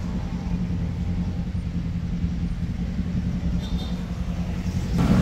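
Motor vehicle engine running with a steady low rumble.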